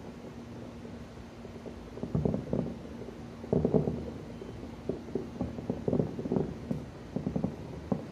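Distant fireworks going off: muffled low booms and thuds that come in quick runs of several at a time, with short gaps between the runs.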